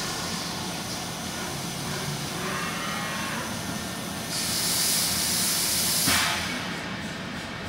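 Vision Wide VTEC NF 3232 double-column CNC machining centre running with a steady mechanical hum. About four seconds in, a loud high hiss starts from the spray jetting out of the spindle nozzle onto the workpiece. It lasts about two seconds and cuts off sharply.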